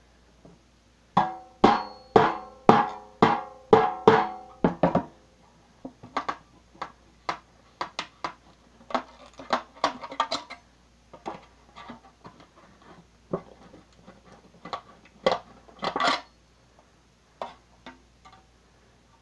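Thin metal cookie tin being struck to work the air slashes open: about eight ringing blows, roughly two a second, in the first few seconds, then irregular lighter taps and clicks on the metal.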